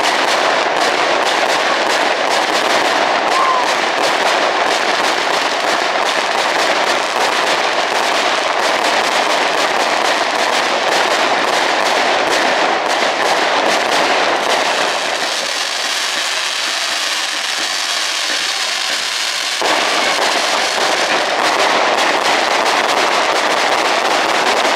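Fireworks display: a dense, continuous crackle of many small bursts. It thins out for a few seconds past the middle, then comes back suddenly.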